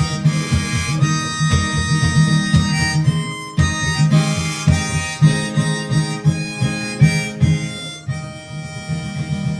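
Harmonica playing over strummed acoustic guitar in the instrumental outro of a folk song.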